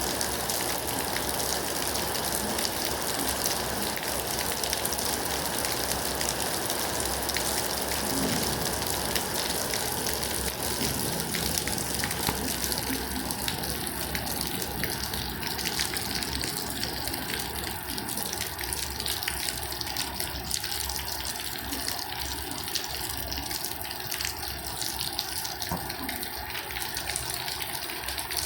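Steady rain falling, an even hiss of water that eases slightly about halfway through.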